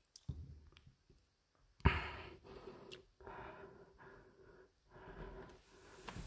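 A sharp thump about two seconds in, then a man breathing heavily close to the microphone, with faint handling noise from a wooden sliding door being pushed open by hand.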